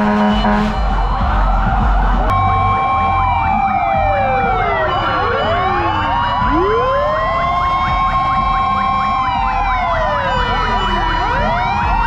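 Several fire-truck sirens sounding at once, with long wails rising and falling out of step with each other and a fast yelp running alongside. A horn blast ends just under a second in.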